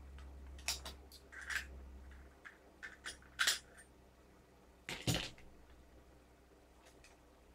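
Small metal parts of a gas-blowback airsoft rifle clinking and tapping as they are handled during assembly: a few separate sharp clicks, then a duller knock about five seconds in.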